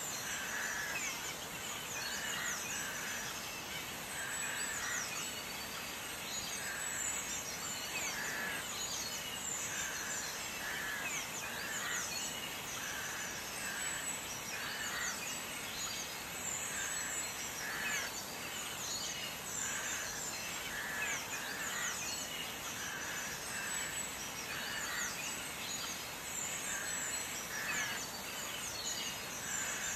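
Small birds chirping over a steady hiss, with quick high chirps and a repeated call about once a second throughout.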